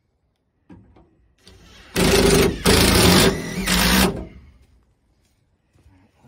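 Power drill running in two short runs starting about two seconds in, a brief one and then about a second and a half more, with a steady motor tone: driving a self-tapping screw to fasten the window frame into the blind wall.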